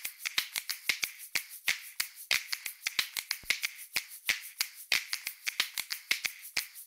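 Finger snaps in a quick, uneven rhythm, several sharp snaps a second, forming a snapped beat.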